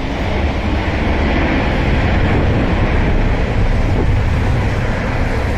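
Jet airliner engines at takeoff power: a loud, steady deep rumble with a hiss that swells in the middle and eases toward the end.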